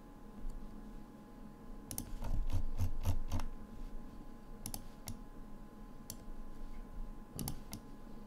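Computer mouse clicking: scattered single clicks, with a quick run of clicks and low knocks about two to three and a half seconds in. A faint steady hum sits underneath.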